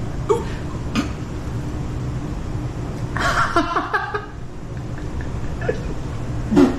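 A man's brief groans and a louder strained vocal outburst about three seconds in, as he reacts to a bad taste, over a steady low room hum.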